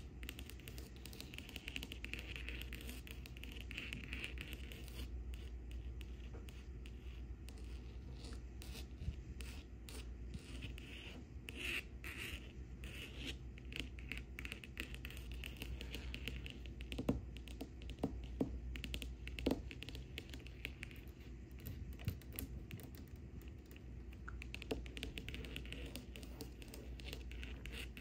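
Long fingernails scratching over a framed canvas art print: a dry rasp across the canvas weave that swells and fades stroke by stroke, with a few sharper nail taps a little past the middle.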